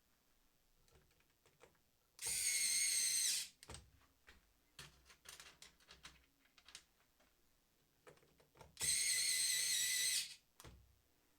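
Parkside PASD 4 C3 4 V cordless electrician's screwdriver motor whining at a high pitch in two runs of about a second and a half each, near the start and later on. It is driving terminal screws at its low 0.4 Nm torque. Faint clicks of handling and bit placement come between the runs.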